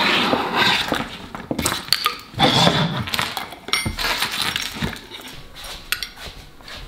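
Small hard plastic and metal RC car parts (a rubber-tyred wheel, a drive belt, a servo, a battery pack) clattering and clinking on a tabletop as they are handled and gathered up into a cloth, with irregular knocks and rustling.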